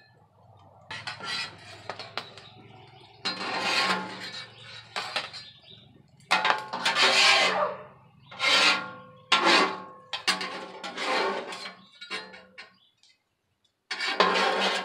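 Metal spatula scraping across the steel surface of a flat-top griddle in a series of about ten strokes of varying length, scooping up food and clearing the cooking surface.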